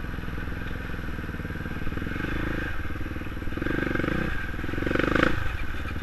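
Dirt bike engine running as it is ridden over a rough dirt track, the revs rising in three short surges from about two seconds in.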